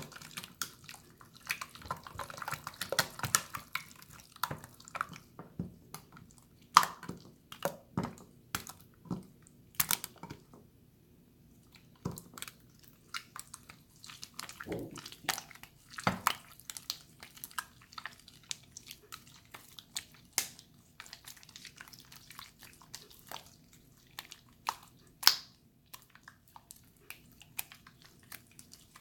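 Water slime being squished and worked by hand, making irregular wet, sticky clicks and pops, with a short pause about ten seconds in.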